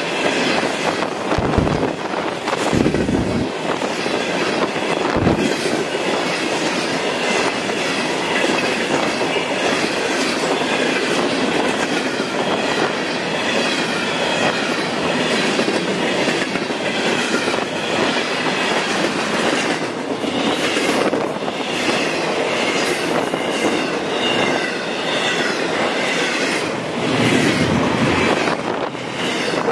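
Freight train rolling past: steel wheels clicking over the rail joints, with a wavering high squeal from the wheels on the rails.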